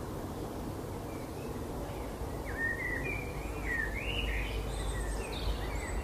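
Birds calling outdoors: a quick run of short whistled chirps that glide up and down, starting about two and a half seconds in, over a steady low background rumble.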